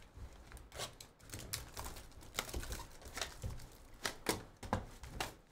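Plastic shrink wrap being torn and pulled off a trading-card hobby box: irregular sharp crinkles and crackles of the film.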